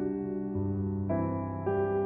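Slow, gentle piano music with sustained notes; a new note or chord is struck roughly every half second.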